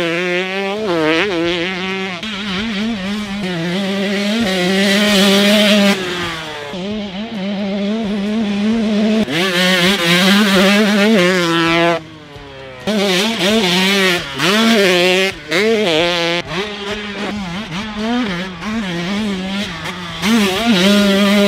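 Varner-built KTM 150 two-stroke motocross engine with an FMF pipe and silencer being ridden hard. Its pitch repeatedly climbs as it revs out and falls back off the throttle. The sound drops away briefly about twelve seconds in, then rises again.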